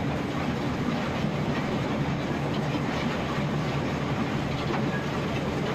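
New Holland 354 grinder-mixer running steadily under tractor PTO power, grinding ear corn, with the chain drag-feed conveyor clattering lightly underneath.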